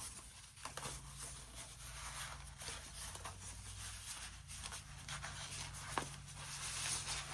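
Packaging being handled and unwrapped from a new keyboard: rustling and crinkling with a few light clicks and knocks.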